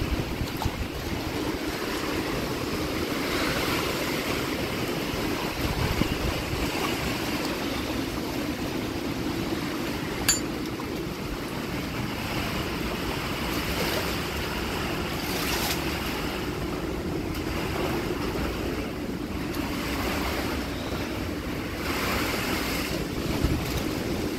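Hurricane wind, a continuous rushing noise that swells and eases in gusts and buffets the microphone. There is one sharp click about ten seconds in.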